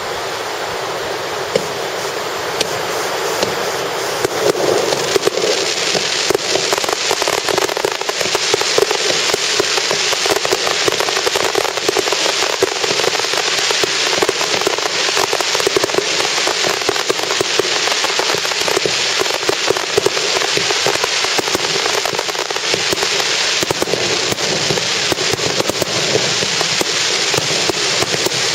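Starmine fireworks barrage: a dense, continuous crackling and popping of many shells and stars going off in quick succession, thickening about four seconds in.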